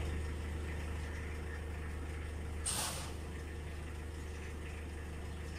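A steady low mechanical hum, with one short, loud hiss a little under three seconds in.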